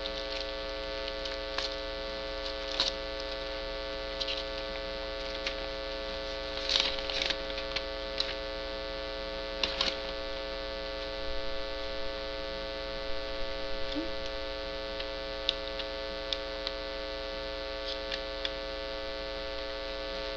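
Steady electrical hum, with scattered light clicks and rustles from plastic packaging and a sticker sheet being handled, loudest about a third and halfway in.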